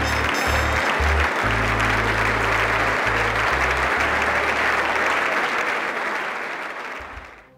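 Large audience applauding in a concert hall, the clapping dying away near the end.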